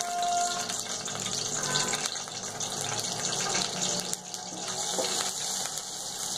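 Hot oil sizzling in a steel kadai with mustard seeds and asafoetida just added for a tempering (tadka), a steady hiss with many small crackles from the seeds.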